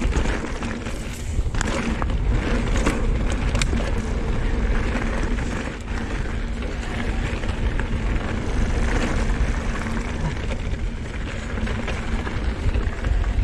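Riding noise of a full-suspension electric mountain bike descending a loose, damp dirt trail: wind buffeting the microphone and tyres rolling over the dirt, with sharp knocks and rattles from the bike over bumps in the first few seconds.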